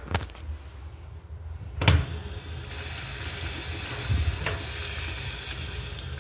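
Automatic urinal flush valve firing: a sharp clunk about two seconds in, then a steady hiss of water rushing through the valve for about three seconds, with a low thud partway through.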